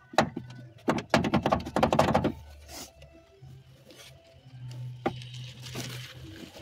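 Handling noise from hands working the rubber air-intake pipe in a Renault Duster's engine bay: about two seconds of dense clattering and rubbing, then quieter, with a single click about five seconds in over a low steady hum.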